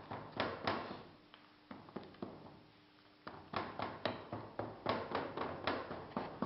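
Molding sand being rammed down by hand in a steel casting flask: runs of short dull knocks, about three or four a second, a short run near the start and a longer one in the second half.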